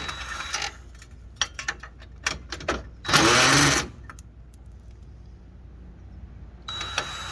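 Cordless drill with a Phillips bit running in short bursts to back out headlight screws. The longest and loudest spin comes a little over three seconds in, rising in pitch as it speeds up, with a few light clicks between the bursts.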